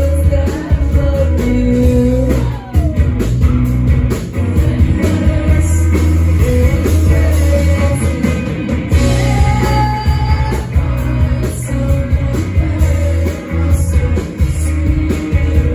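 Live indie rock band playing loud: electric guitars, bass, drums and keyboards, with a lead vocal sung over them, heard from within the crowd.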